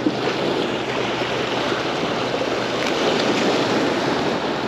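Steady wash of small waves breaking against the rocks of a jetty.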